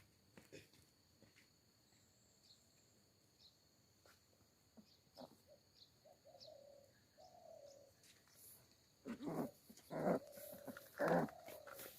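A puppy whining softly: several drawn-out whimpers, louder over the last few seconds.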